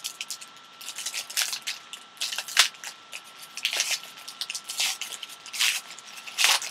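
Plastic trading-card pack wrapper crinkling and tearing as it is opened by hand, in irregular crackling bursts, the loudest about two and a half seconds in and another near the end.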